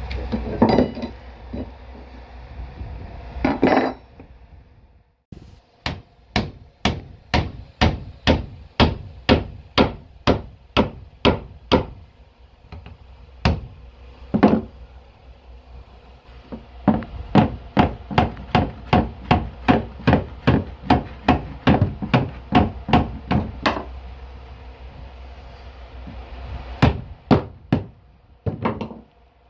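A steel hammer tapping a PVC toilet flange down against a plywood subfloor, in quick runs of sharp blows at about two to three a second, with short pauses between the runs.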